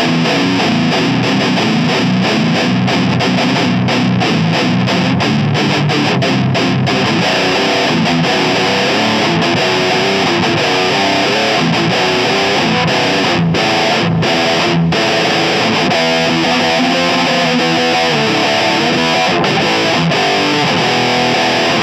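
Fender American Standard Stratocaster electric guitar played through distortion, chugging riffs, with a few very short breaks about two-thirds of the way through.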